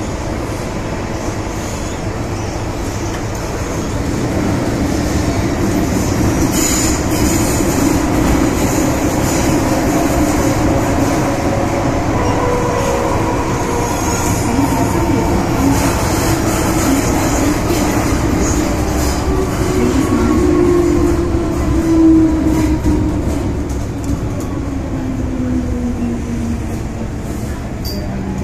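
MTR M-Train electric multiple unit running on the metro, with wheels rumbling on the rails and the traction motors whining in gliding tones. The motor whine falls in pitch over the last several seconds as the train slows.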